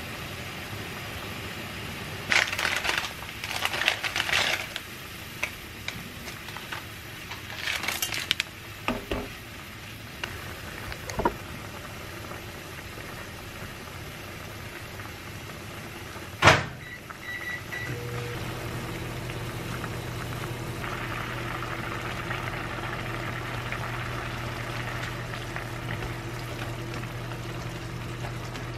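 Microwave oven door clicks shut about halfway through, a short beep follows, and the oven then runs with a steady hum. Under it a pan of broth is boiling, with bursts of utensil clatter and stirring in the first ten seconds.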